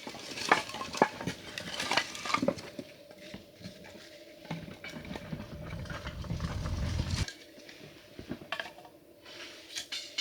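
Dishes and utensils clinking and knocking, with several sharp clicks in the first few seconds and a few more near the end. A low rumble runs for a couple of seconds in the middle.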